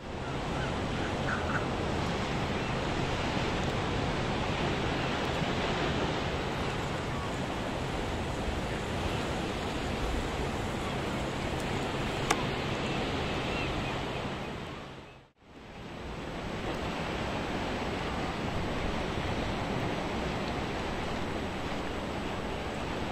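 Steady rushing of wind and open sea, an even noise, that drops out for a moment about fifteen seconds in at an edit, then resumes.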